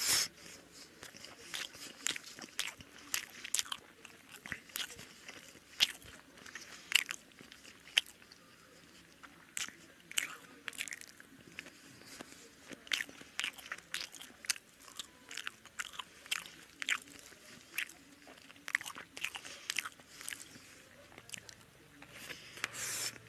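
Close-up sounds of a man eating rice and curry with his fingers: chewing and lip smacking, with many sharp, irregular clicks.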